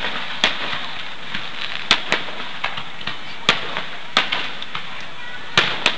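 Aerial firework shells bursting, a string of sharp bangs at irregular intervals, roughly two a second, with the loudest bang near the end.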